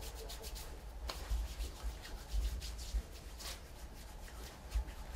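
A nurse's hands rubbing together in a hand-hygiene routine, palm over palm and across the backs, as a run of short, irregular rubbing strokes.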